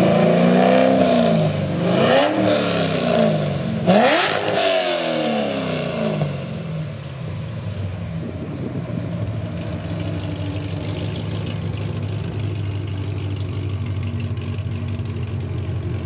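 A Corvette ZR1's supercharged V8 runs through a new Akrapovic exhaust and American Racing headers. The throttle is blipped three times in quick succession, the last blip the sharpest and loudest, and then the engine settles to a steady idle.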